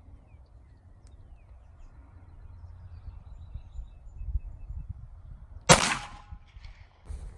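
A single loud gunshot from a pistol about six seconds in, a sharp crack with a short echo, over a low rumble. A much fainter crack follows just before the end.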